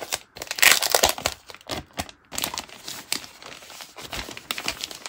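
Clear plastic sleeve crinkling and crackling irregularly as hands pull and handle it around a spiral-bound calendar.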